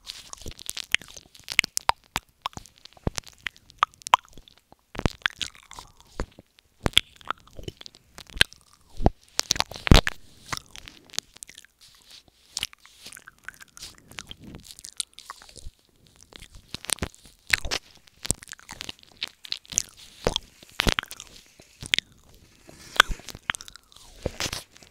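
Wet mouth sounds close to the microphone: an irregular run of quick, sharp clicks and smacks made with a hand cupped over the mouth, as in 'ear eating' ASMR.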